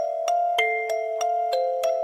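Background music: a gentle melody of quick, evenly spaced struck notes, about three a second, each ringing on over the next.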